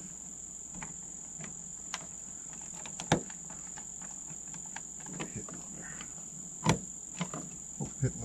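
Crickets singing steadily, with sharp clicks and knocks from a plastic gravity water fill hatch being opened and handled on the bus's metal side. The two loudest knocks come about three seconds in and near seven seconds.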